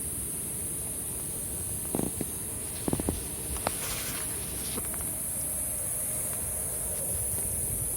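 Small wood fire burning in a compact folding fire grill, with a steady low rumble and a few sharp crackles and pops about two to four seconds in.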